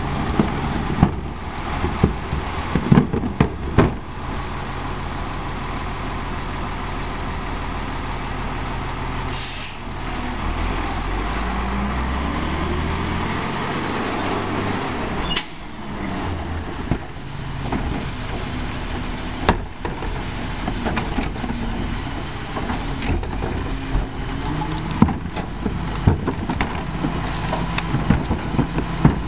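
Crane Carrier garbage truck's diesel engine running, with sharp knocks and bangs of carts being handled in the first few seconds. About ten seconds in the engine revs up with a rising pitch as the truck pulls ahead, with an air-brake hiss, and more knocks come near the end.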